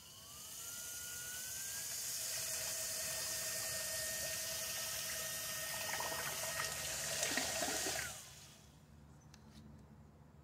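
Homemade trolling motor, an 18-volt Porta-Band bandsaw motor with gear reduction driving a 3D-printed prop through a 2-to-1 90-degree drill adapter, on a 12-volt battery: it spins up with a rising whine, runs steadily while the prop churns the water in the tub, then winds down with a falling whine about eight seconds in. A few faint clicks follow.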